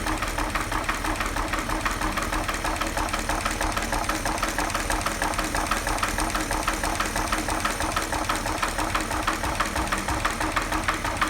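1940 Chevrolet 216 inline-six engine running with a steady, rapid, even knock from its bottom end. The knock is the sign of worn bearings and low oil pressure, and the engine needs a rebuild.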